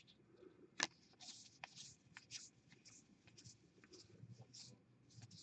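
Faint rustle of baseball cards being flicked and slid off a stack one after another: a dozen or so soft, irregular swishes, with one sharper click a little under a second in.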